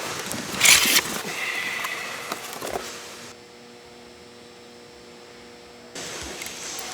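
Shop work noise while a strut is being fitted: a short loud hiss about half a second in, then light clanks and clicks. From about the middle the noise drops to a steady electrical hum for a few seconds before the shop noise comes back.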